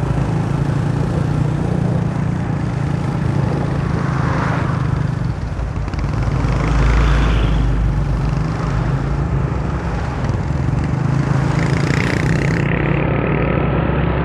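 Motorcycle being ridden: its engine runs with a steady drone under rushing road noise, swelling louder a few times.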